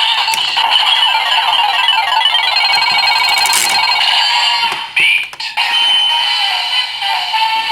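Electronic sound effects from the DX Fever Slot Raise Buckle toy during a transformation sequence: a loop of synthesized music with a run of rapid, repeating chime-like beeps from its slot-machine roulette, a brief break and a bright chime about five seconds in, then the music carries on.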